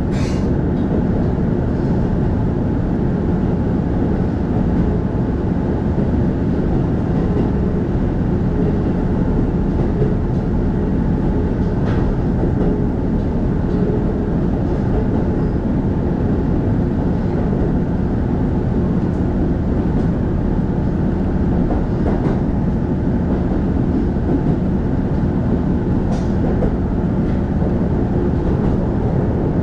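Inside a KiHa E130 diesel railcar running along at a steady speed: a continuous low rumble of engine and wheels on rail, with a brief high-pitched sound right at the start and a few faint clicks over rail joints.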